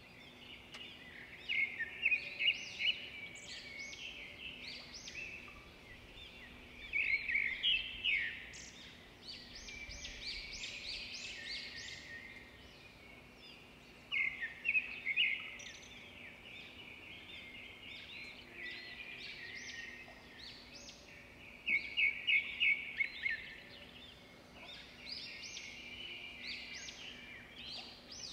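Birds singing outdoors, with bursts of quick, high chirping notes every few seconds, loudest about two seconds in, near eight seconds, and around twenty-two seconds.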